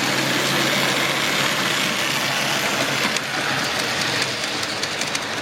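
Model railway locomotive hauling a coal train up an incline: a steady motor whir and wheels rolling on the track, with a few light clicks near the end.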